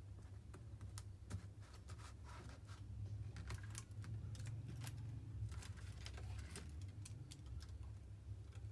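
Irregular light clicks and taps of a screwdriver and laptop parts being handled as the motherboard is fitted into a laptop's palmrest chassis, over a steady low hum.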